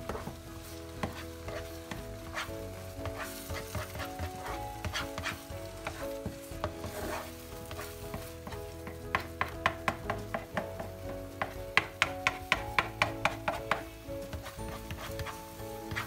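Egg and tomato sizzling in a frying pan as a spatula stirs and scrapes them into a scramble, with sharp taps of the spatula on the pan. The taps come quickest in a run of several a second from about nine to fourteen seconds in.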